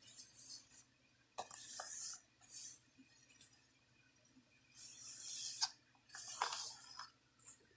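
A steel BB rolling and rattling across the holed board of a fortune-telling game under its plastic cover, in about five short runs of under a second each, with a few sharp clicks as it catches in the holes.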